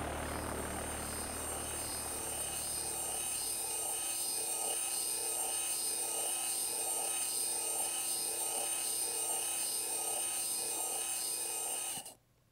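Teching five-cylinder radial engine model running, its motor-driven mechanism and propeller making a steady high whine with a regular pulsing clatter. It cuts off suddenly near the end.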